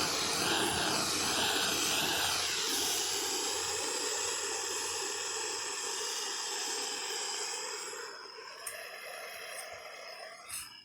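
MAPP gas torch burning with a steady hissing rush. It fades over the last few seconds and cuts off suddenly near the end.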